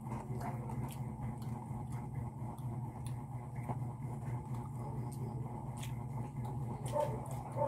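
Steady low hum with scattered light clicks of hands and food on plates. Near the end a dog gives two short whimpering yelps.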